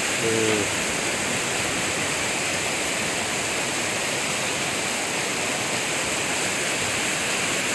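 Steady rushing of a fast, turbulent, muddy floodwater river: a rain-fed flood surge (cold lahar) that is still growing.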